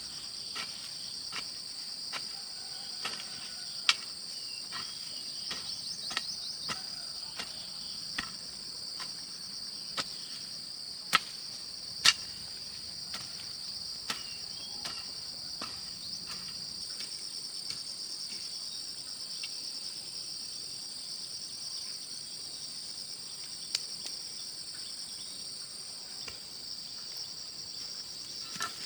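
Insects chirring steadily in a high, unbroken drone at two pitches, with a run of sharp knocks or taps over it, coming every second or so through the first half, two loudest near the middle, then thinning out.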